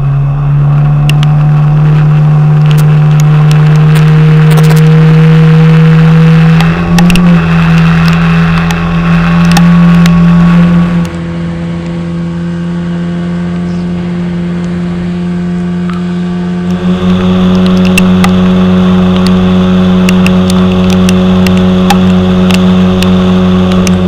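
Boat outboard motor running steadily at cruising speed, its pitch stepping a little about seven seconds in and again near seventeen seconds, with frequent sharp knocks of the aluminium hull on the water.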